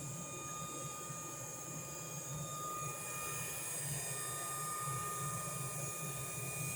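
Coal forge running with its air blast on: a steady blower hum and rushing air through the fire while iron heats to welding temperature.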